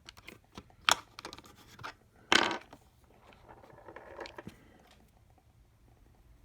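Small precision screwdriver bits and their case being handled: scattered clicks and light rattles, with a sharp scrape about two and a half seconds in.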